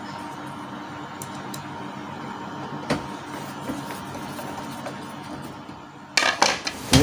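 Hand screwdriver turning a screw into a Canon G1010 printer's plastic rear panel, over a steady background hum, with a sharp click about three seconds in. A loud burst of clattering knocks near the end.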